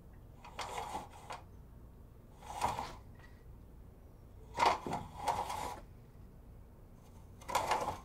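Wide-slatted horizontal window blinds being tilted shut and open, the slats clattering and rattling against one another in four short bursts, the loudest a little before the middle.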